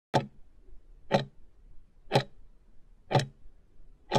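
Countdown timer clock-tick sound effect: five sharp ticks, one each second, as the timer counts down the last seconds.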